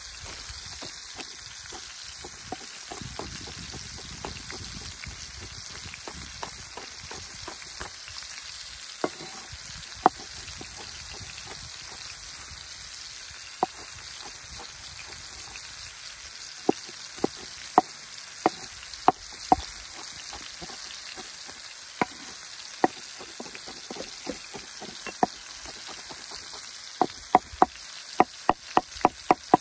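A large kitchen knife slicing and chopping green peppers on a wooden cutting board, with separate sharp knocks of the blade on the board and a quick run of chops near the end. A steady sizzling hiss of food cooking over the fire runs underneath.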